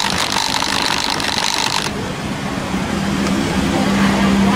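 Coin-operated washing machine running: a hiss that stops about two seconds in, then a steady motor hum that grows louder toward the end.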